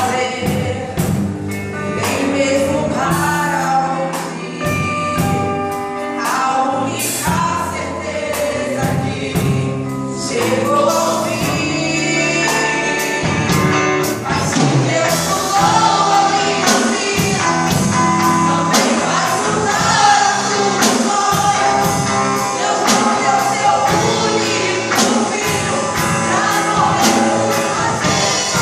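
Live gospel worship music in Portuguese: singers over a band, with a steady, even beat.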